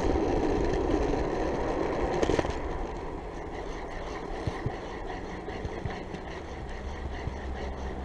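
Waveboard wheels rolling on asphalt, a steady gritty rumble that eases off about two and a half seconds in, with a few faint clicks.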